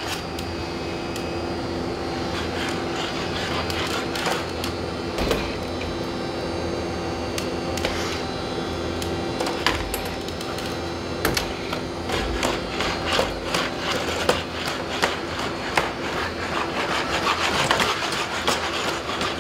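Boston Dynamics Spot quadruped robots' electric leg motors whining steadily, with scattered clicks and knocks of their feet on a hard floor and of the arm working a door. The taps come faster near the end as two robots walk through together.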